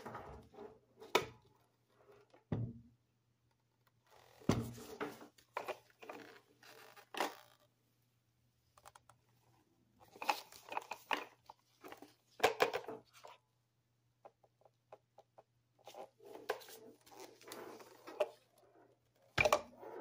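A plastic single-serve coffee maker being handled by gloved hands: irregular plastic clicks, knocks and thunks as its hinged lid and pod holder are opened and moved, with rustling in between. One sharp knock comes near the end.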